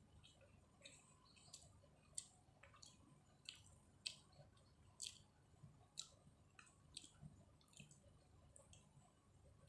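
Faint mouth sounds of eating chicken biryani close to the microphone: chewing with irregular wet clicks and lip smacks, about one or two a second.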